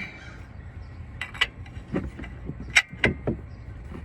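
Wrench clinking against metal under a car: about six sharp metallic clicks and knocks at irregular spacing, over a low steady rumble, as the tool is worked on a stuck transmission fluid pressure switch.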